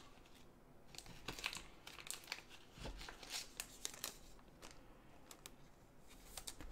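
Thin plastic card sleeve and rigid plastic top loader being handled as a trading card is slid into them: a run of faint, quick crinkles and ticks.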